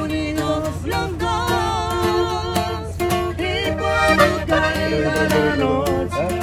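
Norteño-style duet: a button accordion and a strummed acoustic guitar accompany a man and a woman singing a lively song.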